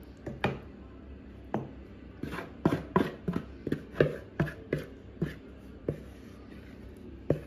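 A series of short, sharp knocks and taps at irregular spacing, about two a second at the busiest, as a metal tube cake pan filled with grated cassava batter is handled on the table.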